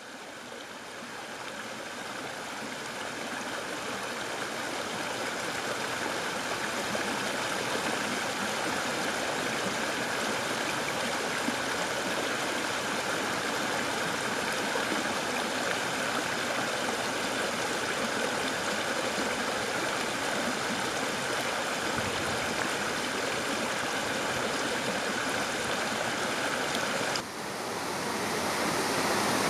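Shallow stream running over rocks: a steady rushing babble of flowing water. About 27 seconds in it cuts to a louder, fuller rush of water pouring over a small weir.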